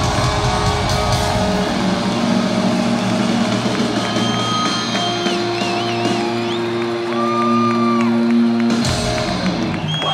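Live rock band finishing a song in a large hall: the drums drop out a few seconds in, leaving held guitar and keyboard notes ringing while the crowd shouts and whistles, and the band lands one last loud hit near the end.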